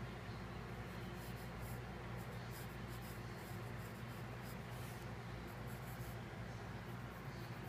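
Wooden graphite pencil scratching lightly on paper in short, intermittent strokes, over a steady low hum.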